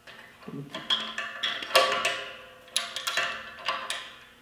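Steel clamp knocking and clanking against a steel welding table as it is set into the table's holes and positioned, about eight sharp metallic knocks, each ringing briefly.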